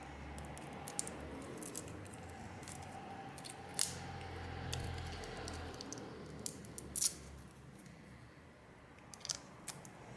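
Scattered light clicks and taps of small tools and parts being handled during a phone repair, about five distinct ticks spread over a low steady hum.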